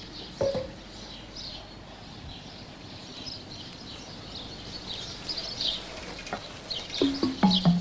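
Small birds chirping repeatedly in the background over an outdoor hush. Music with low pitched notes comes in near the end.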